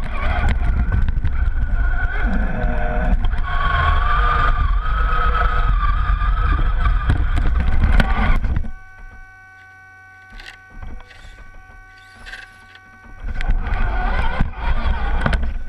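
Electric RC crawler truck's motor and gears whining as it drives over snow, the pitch wavering with the throttle over a heavy rumble, heard from a camera mounted on the truck. About nine seconds in it cuts off suddenly to near quiet, and it starts up again about four seconds later.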